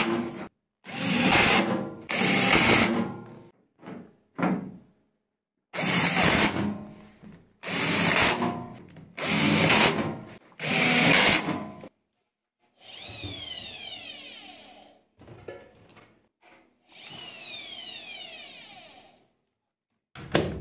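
Makita cordless drill/driver driving screws into a washing machine's sheet-metal panels in about eight short bursts of a second or less. These are followed by two quieter sounds of about two seconds each that fall in pitch, and a short knock near the end.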